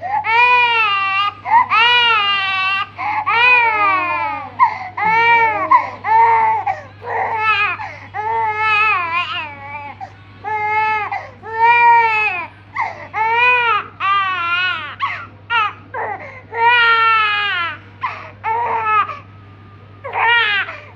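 Infant crying hard in a chain of wailing cries, each rising then falling in pitch, one after another with brief catches of breath and a pause of about a second near the end.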